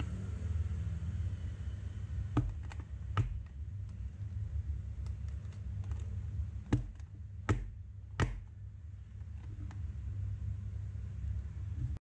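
A square metal baking tin of chocolate ganache handled on a countertop, knocking against the surface about six times in loose groups, over a low steady hum.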